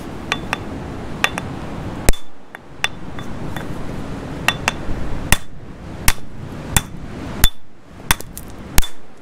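Geological hammer striking a stone nodule on rock, about fifteen sharp blows at an uneven pace, each with a brief high metallic ring, as it is knocked open to see if a fossil is inside.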